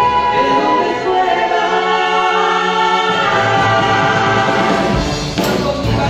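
Youth orchestra and choir performing live, voices and instruments holding sustained chords. Percussion hits come in near the end.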